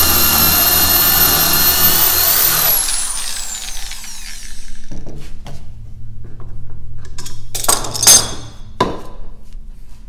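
Corded hand drill boring through a wooden board, running steadily at full speed, then released about three seconds in and spinning down with a falling whine. After that come handling clicks as the clamp is loosened, with a sharp knock near eight seconds.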